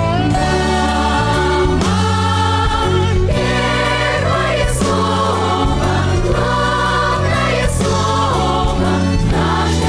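A song sung by several voices, with group singing, over an instrumental backing that has a steady bass line.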